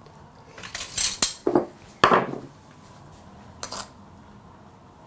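A ceramic sugar pot being opened and a metal spoon dipped into it: a handful of separate clinks and knocks, the sharpest about two seconds in with a short ring.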